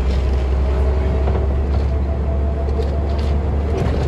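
Interior of a 1991 MAN SL243 city bus under way: a steady low engine rumble with a faint steady whine over it, and a few clicks and rattles from the bodywork.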